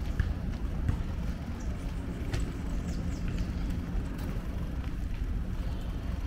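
Steady low rumble of wind and rolling noise while riding a bicycle along a paved path, with a few light clicks and rattles.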